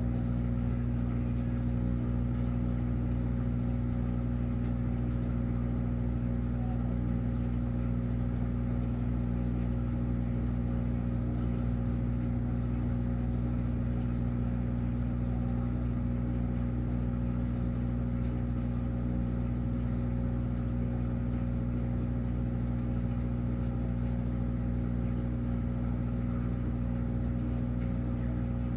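Washing machine running with a steady low hum that does not change.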